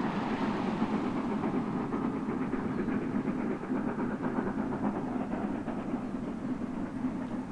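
Steam-hauled train on a heritage railway running along the line with a steady, continuous noise of the train in motion.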